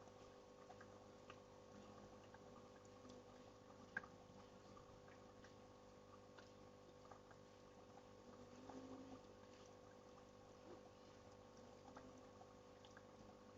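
Faint, steady rush of a waterfall under a low hum, with scattered small clicks and drips. One sharper click comes about four seconds in.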